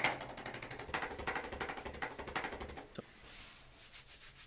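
Rapid percussive massage on the back: fast, evenly spaced pulses. They stop about three seconds in with a single short click.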